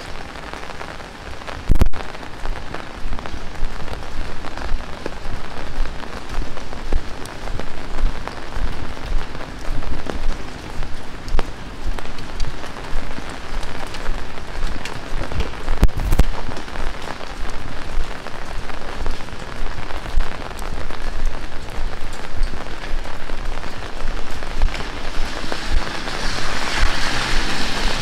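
Heavy rain pouring and pattering on hard surfaces, dense with small drop ticks, with two sharp thumps, about two seconds in and about halfway. Near the end a hiss builds with a low rumble under it.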